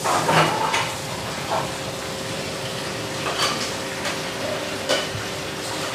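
A hand kneading raw minced mutton with spice powders in a large steel bowl: soft wet squelching and rustling with a few sharp clinks against the bowl. A steady hum runs underneath.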